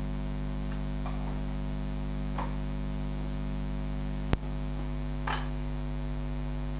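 Steady electrical mains hum, with a few faint short noises and one sharp click a little past the middle.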